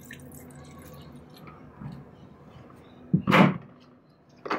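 Water trickling faintly into a small empty metal tin. About three seconds in, a loud knock and a short scrape as a container is set down on the wooden workbench, with another knock at the very end.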